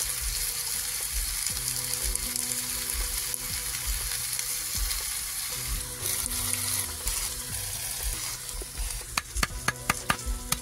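Chopped vegetables sizzling in a metal frying pan with a steady hiss. About nine seconds in, a quick run of sharp knife chops against a brick begins.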